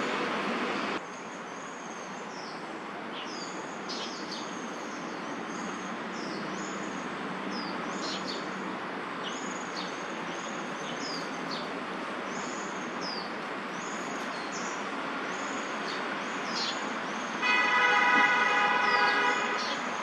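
Steady hum of distant city traffic with small birds giving short, high, downward-sliding chirps again and again. Near the end a loud, steady pitched tone with overtones sounds for about two seconds, like a vehicle horn or brake squeal.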